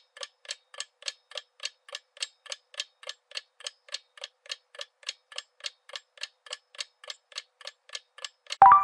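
Countdown-timer ticking sound effect, a clock-like tick about three and a half times a second, counting down the answer time. Just before the end a louder ringing tone sounds as the timer reaches zero.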